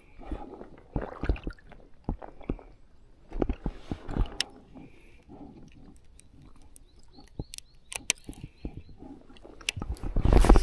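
Handling of a baitcasting rod and reel: scattered clicks and knocks with rustling of sleeves during the retrieve, then near the end a loud whoosh as the rod is swung into a cast.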